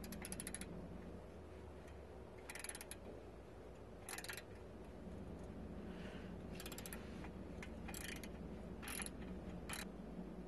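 Ratcheting box-end wrench clicking as it is swung back between strokes while loosening a bolt on a car's exhaust pipe: seven short bursts of rapid clicks, a second or two apart.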